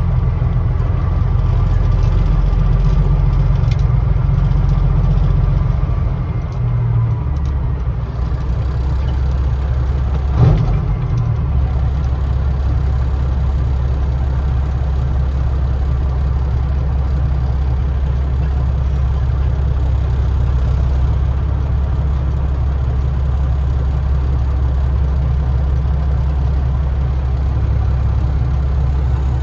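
Semi truck's diesel engine running at low speed in stop-and-go traffic, heard from inside the cab as a steady low drone. The engine note shifts down about six seconds in, and a single short knock sounds about ten seconds in.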